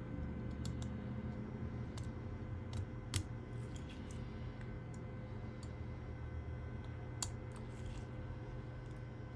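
Scattered small clicks and taps of tools and parts being handled during a smartphone screen repair, the loudest a little after three seconds in and another near seven seconds, over a steady low hum.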